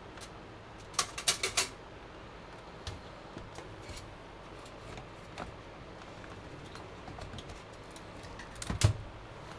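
GeForce RTX graphics card being handled and fitted into a PC case. A quick run of sharp clicks comes about a second in, then faint scattered taps, and a heavier knock near the end as the card is pressed down into the motherboard's PCIe slot.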